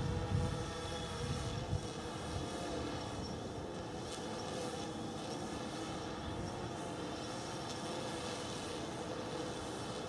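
Camera drone's rotors whirring steadily at a hover, a fixed multi-pitched hum. Wind buffets the microphone with low rumbles in the first couple of seconds.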